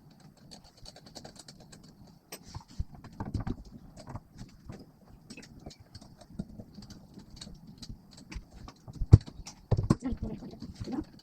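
Irregular small clicks and knocks from handling parts and tools during 3D printer assembly, with one sharper, louder knock about nine seconds in and a quick run of knocks just after.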